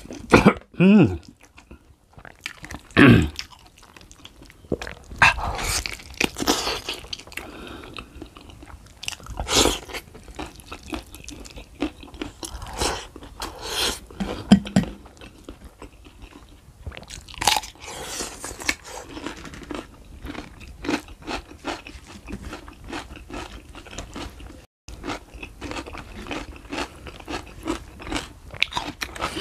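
Close-up mouth sounds of a person eating rice and beef foot by hand: wet chewing, lip smacks and crunching, in irregular short clicks throughout.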